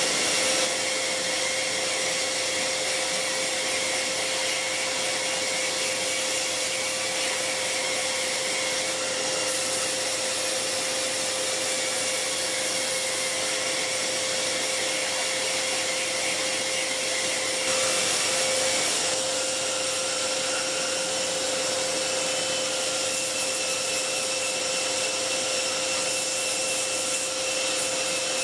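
A vacuum cleaner running steadily together with a small handheld belt sander, set to low speed, sanding a small wooden part. The sound brightens slightly about two-thirds of the way through.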